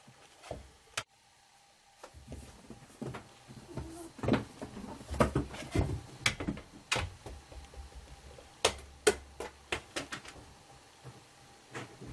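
A cat pawing and clambering at a carpeted cat-tree post and platform: irregular knocks, taps and scratches, a few at first, then busier from about two seconds in, with the loudest knocks between about four and nine seconds in.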